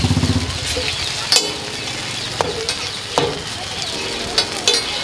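Dal tikkis sizzling steadily in shallow oil on a large flat tawa griddle, with a metal spatula clacking against the griddle five times.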